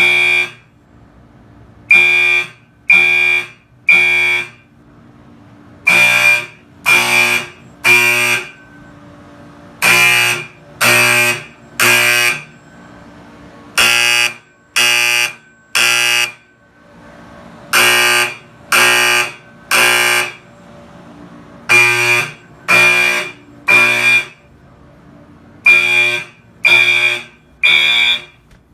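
Fire alarm horns sounding together in sync, in the temporal-three evacuation pattern set on a Wheelock MDL sync module: three half-second blasts about a second apart, a pause of about one and a half seconds, repeating.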